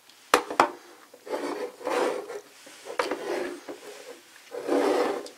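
Hard plastic toy pieces being handled: a few sharp clicks and knocks, and stretches of plastic rubbing and scraping.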